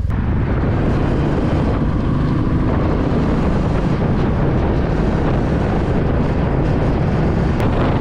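Motorcycle running steadily on the move, its engine heard under heavy wind rushing over the microphone.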